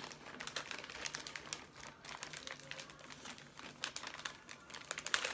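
Wrapping paper crinkling and rustling as a Christmas present is unwrapped by hand, a continuous run of small crackles.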